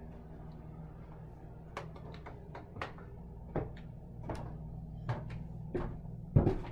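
Footsteps climbing wooden stairs: a string of uneven knocks starting about two seconds in, ending in a louder thump near the end, over a steady low hum.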